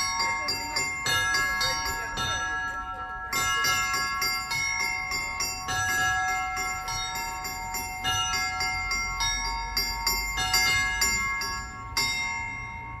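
Russian Orthodox church bells rung by hand: many bells of different pitches struck in a quick, uneven pattern, with a last strike near the end left to ring out.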